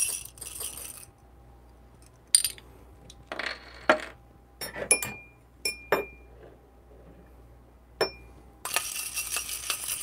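Whole coffee beans pouring and rattling into a stainless steel dosing cup, then several sharp clinks of a thin metal stirring stick against a small glass of water and the cup, some ringing briefly. From about nine seconds in, a steady rattle as the damp beans are stirred in the metal cup, the Ross droplet technique to cut static before grinding.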